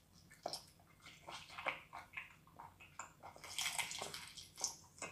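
Close-up wet slurping, sucking and smacking mouth sounds of someone eating a whole raw octopus, many short wet clicks with a longer slurp about three and a half seconds in.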